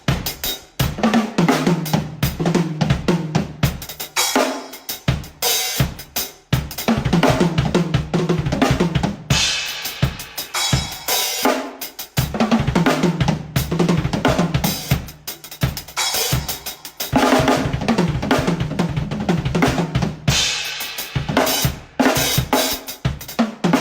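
A drum kit playing a groove, with kick, snare, hi-hat and cymbals. A low, held bass line sounds under the drums in several stretches.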